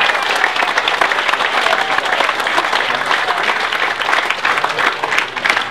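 Crowd applauding and cheering for a first-place award, dense clapping with a few whoops.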